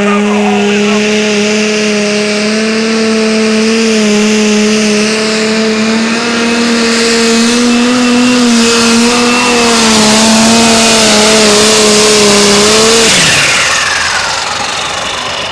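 Competition pulling tractor's engine held at full throttle under load during a pull, with a strong high hiss over it. About two seconds before the end the revs drop off, and a high whine winds down after them.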